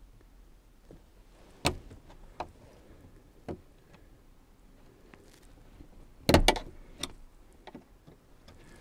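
Sharp plastic clicks and taps as a small screwdriver prises at the brittle locking clips of the fuel line quick-connectors on a fuel pump unit. There are a few single clicks, then a louder quick cluster of clicks a little past the middle, and two more after it.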